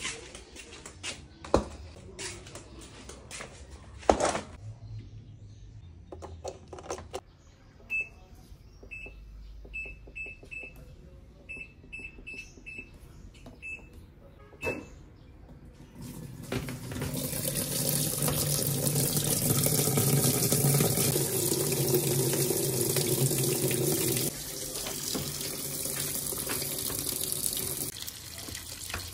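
Top-loading washing machine: a few knocks and clatters, then a string of short high beeps as buttons on its control panel are pressed. Just past halfway, a loud steady rush of water starts pouring into the drum as the tub fills over the clothes, easing off a little in level later on.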